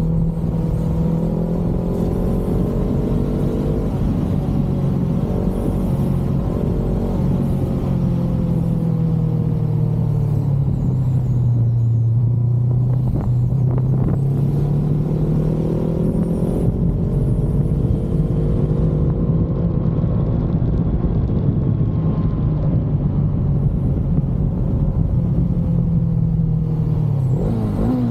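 Honda CBR500R's parallel-twin engine running through an Akrapovic exhaust at a steady cruise. Its pitch sinks slowly around the middle, then climbs back, with a quick rise and fall in pitch near the end.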